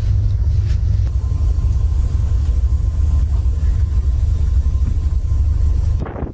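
Steady, heavy low rumble of wind buffeting the microphone aboard a ship at sea. It cuts off abruptly near the end.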